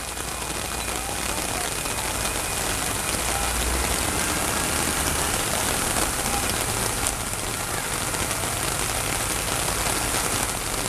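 Heavy downpour hissing steadily on the street, roofs and parked cars, with the low rumble of a tractor engine driving slowly past through the water.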